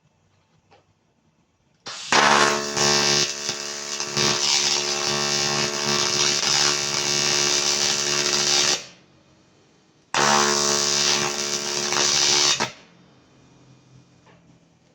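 AC TIG welding arc buzzing on aluminium, struck twice: a long bead of about seven seconds, then a short one of about two and a half seconds.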